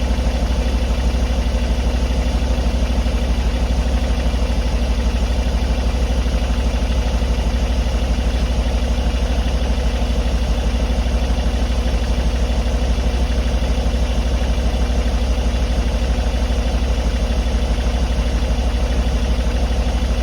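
A '278' engine idling steadily with a fast, even knocking running through it: an unexplained knock that the owner is trying to identify.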